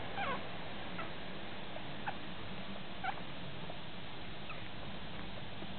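Puppy whimpering in short, high, squeaky whines like a squeeze toy. There are about five of them, a second or so apart, fainter after about three seconds, over a steady hiss.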